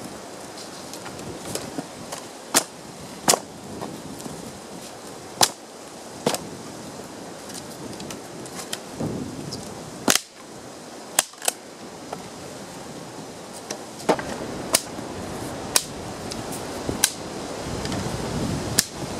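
Dry sticks and branches snapping, a dozen or so sharp cracks at irregular intervals, with rustling of twigs and leaves between them.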